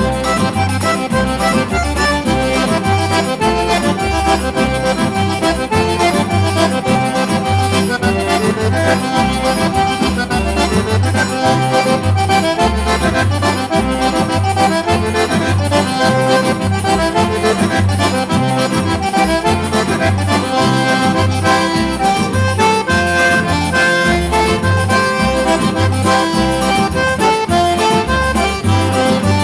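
Instrumental forró played on a button-free piano accordion (sanfona), with a steady beat of bass notes under the melody.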